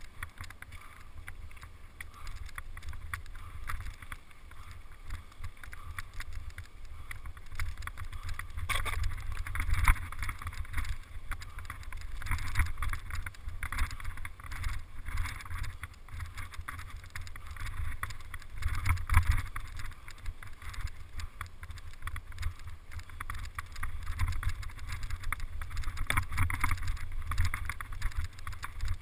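Wind buffeting the microphone of a camera on a mountain bike during a fast descent, a steady deep rumble that surges at times. Through it run clattering knocks and rattles from the bike jolting over a rough dirt trail.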